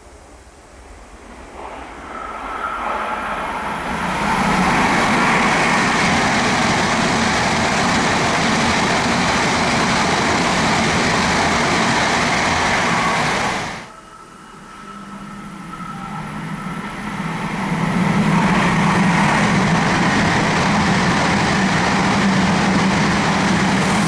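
Hayabusa Shinkansen bullet train running through the station at speed: a loud rushing noise of wheels and air that builds over about four seconds and then holds steady. It cuts off abruptly about 14 seconds in, then a second pass builds again over a few seconds and stays loud to the end.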